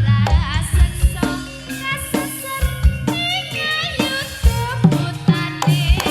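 Live Javanese jaranan music: sharp kendang drum strokes and deep low notes under a melody that bends and wavers in pitch.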